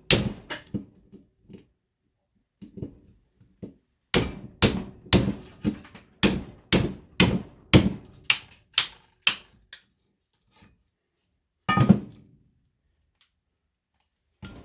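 Repeated hammer blows on a fluorescent light ballast, striking to knock a jammed copper coil loose from its steel housing. There are a few knocks at first, then a steady run of about a dozen at roughly two a second, and one last heavy blow later on.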